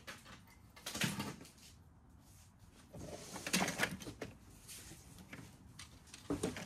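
Knocks and rattles of vintage toy train cars being handled, picked up and set down while being sorted, in a few separate bursts.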